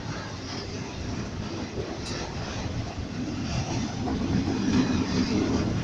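Freight train rolling past: the steel wheels run on the rails with faint clacks, and a low rumble grows louder about three seconds in. No horn sounds.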